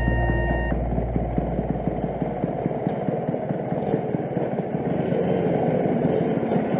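Motor scooter engine running with a rapid, dense pulsing note. Background music cuts off about a second in.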